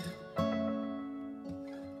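Background music: instrumental notes that start sharply and ring on, with a new chord about half a second in and a softer one about a second and a half in.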